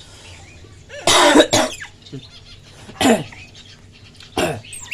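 A man coughing loudly and deliberately, three sharp coughs: about a second in, around three seconds in, and near the end.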